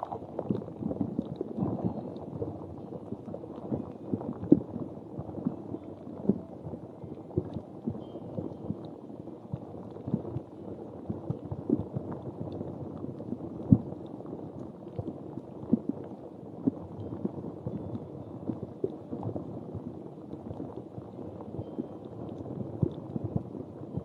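A handheld ridged object rubbed and tapped right against the microphone: a steady, muffled crackling made of many small clicks, with a few sharper taps.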